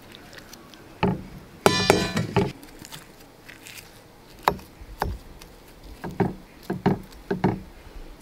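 A knife cutting through a charred, crusty baked dish in a terracotta bowl, the blade scraping and knocking against the clay. There is a brief squeal of the blade on the bowl just before two seconds in, then a string of sharp clicks and crunches as the crust breaks.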